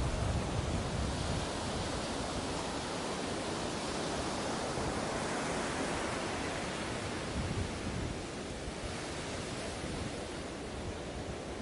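Ocean surf washing on a beach: a steady rushing noise that swells over the first several seconds and eases a little after about eight seconds.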